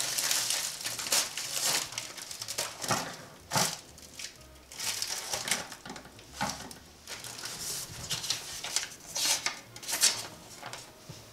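A padded bubble mailer and a plastic zip-lock bag being handled, crinkling and rustling in irregular bursts. Near the end comes a paper rustle as a folded letter is opened.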